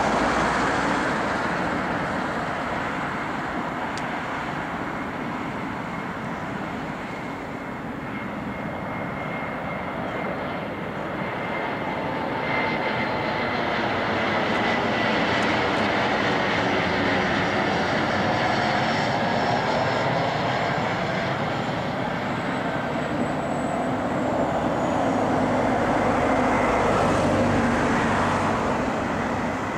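A CRJ-900 regional jet's two rear-mounted GE CF34 turbofans on final approach: a continuous jet rush with a thin high whine on top and slowly sweeping tones. The level swells as the jet comes over the runway in the flare and eases off near the end.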